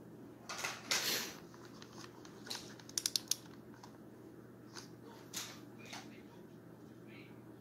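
Clockwork wind-up toy dinosaur being wound by hand: a rustle of handling near the start, then a quick run of four sharp clicks from the winding key about three seconds in, and a few single clicks after.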